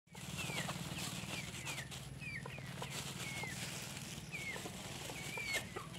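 Chickens foraging: short, high chirps falling in pitch, about one a second, with a few softer, lower clucks. A steady low hum runs underneath.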